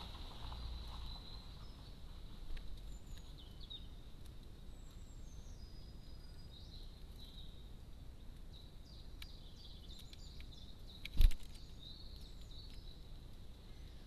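Small garden birds chirping and whistling in short high calls, over a faint steady high tone. About eleven seconds in there is a single sharp thump, the loudest sound.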